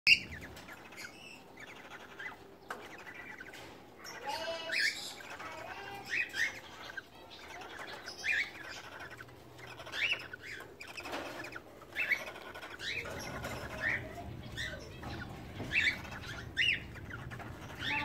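Cockatiels mating, with a string of short, sharp chirps coming every second or so, a brief warbling run among them, and wing flapping.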